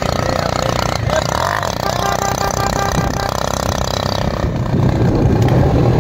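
Motorcycle engine running steadily while riding uphill. About four and a half seconds in, the steady tone gives way to a louder, choppy low rumble.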